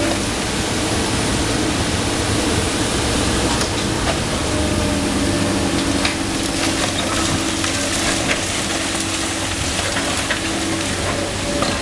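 Komatsu PC290NLC excavator's diesel engine running steadily, its note easing for a few seconds early on and then returning, with scattered cracks and crunches of demolition debris, wood among it, breaking.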